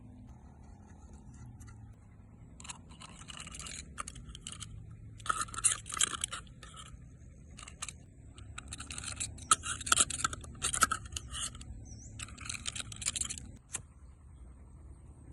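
Scraping by hand in four bursts of quick strokes, each a second or two long, over a steady low background rumble.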